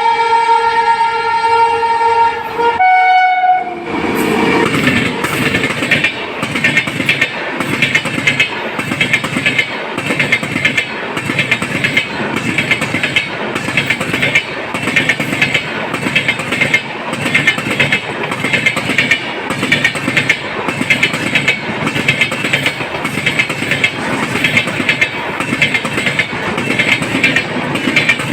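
Electric locomotive horn sounding one long blast, then a brief second note, followed by a passing train of LHB coaches. The coaches make a loud steady rush with a regular clickety-clack of wheels over the rail joints.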